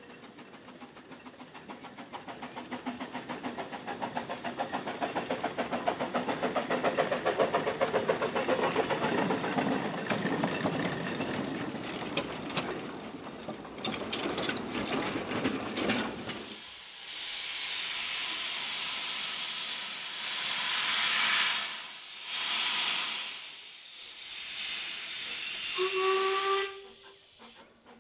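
A Quarry Hunslet narrow-gauge steam locomotive passes with its wooden coaches, its wheels clattering rapidly, swelling as the train goes by and then fading. Then two small steam locomotives hiss steam in four long bursts, and one sounds a short whistle near the end.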